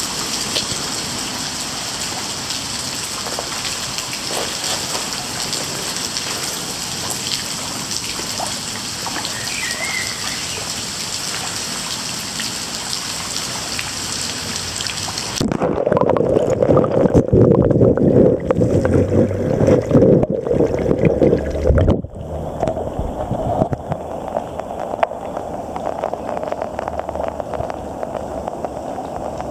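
Flowing river water, a steady hiss. About halfway in it gives way to louder, duller sloshing and splashing as legs in jeans and shoes wade through the water.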